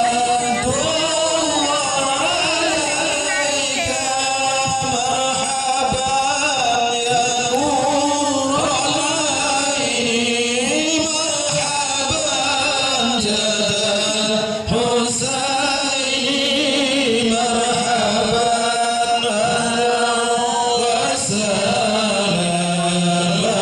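Sholawat, Islamic devotional songs in praise of the Prophet, sung by a group of voices in a chant-like melody with long, wavering held notes.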